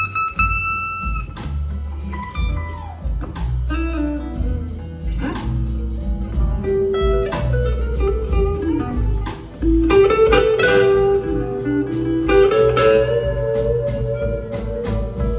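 Live blues-rock band playing: electric guitars carry a melodic lead line with sliding, gliding notes over bass and a drum kit.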